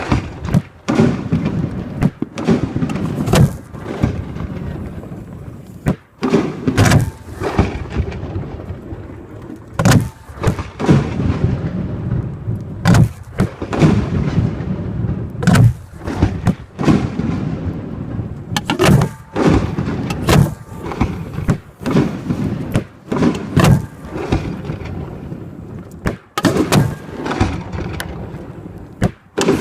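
Aerial fireworks shells firing from mortar tubes close by and bursting: a rapid, irregular string of loud booms, one every second or two, each followed by a low rumbling echo.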